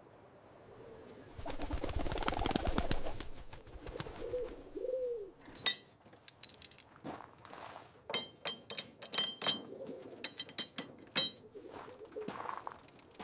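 A loud rustling burst, then two low cooing bird calls, followed by a run of short, sharp clicks with high ringing tones.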